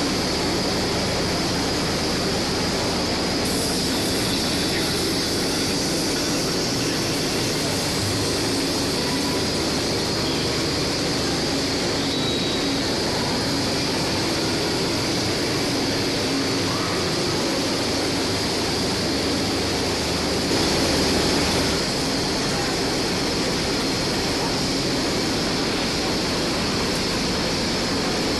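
Steady mechanical din of a running jar-filling and capping line in a factory hall, an even noise with no separate strokes, briefly louder about three-quarters of the way in.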